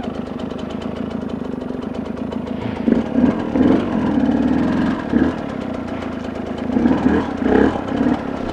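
KTM dirt bike engine running at low revs on a slow ride over rough, rocky ground. It picks up briefly about three seconds in and again around seven seconds.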